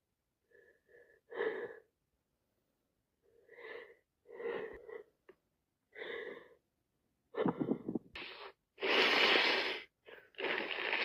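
A woman with a cold sneezing again and again, with wheezy catching breaths in between; the bursts grow louder, the biggest sneezes coming in the last few seconds.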